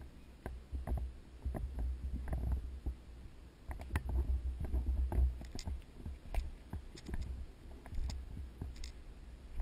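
Movement and handling noise on a player-worn camera: a low rumble with irregular clicks and knocks from the rifle and gear as the player moves.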